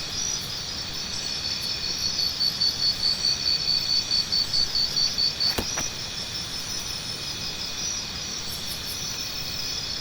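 Insects trilling in a woodland chorus, several steady high-pitched trills at once, with one louder insect chirping in rapid pulses, about four a second, for a few seconds. A single sharp click comes roughly halfway through.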